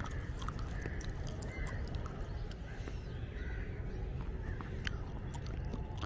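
Outdoor ambience of wind rumbling on the microphone, with a few short faint distant calls and light scattered clicks.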